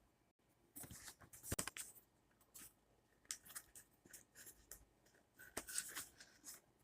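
Faint scraping, rustling and clicking of a toy's packaging being handled and opened, in three short clusters.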